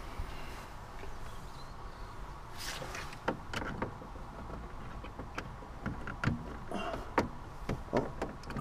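Plastic clicks and knocks from a lorry cab's overhead interior light fitting as its cover and bulb are worked by hand, an irregular run of sharp clicks starting about three seconds in, over a low steady rumble.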